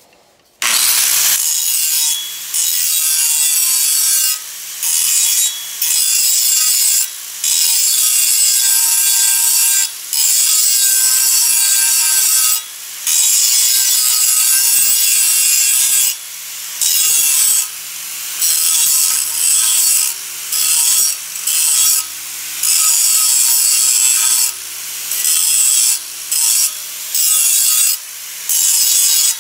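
Angle grinder cutting into a steel saw blade, starting about half a second in. The cut comes in repeated short passes, the grinding dropping off briefly every second or two.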